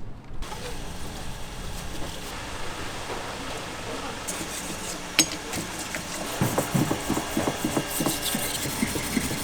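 Knife scraping and knocking on a wooden cutting board as fish is cut, with a sharp click about five seconds in and rapid short knocks from about two-thirds of the way through.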